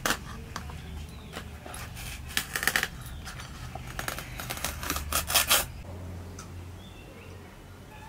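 Fresh banana leaves being sliced and torn against the fixed curved blade of a boti: a run of crisp, crackling cuts, thickest about two and a half and five seconds in, then dying away.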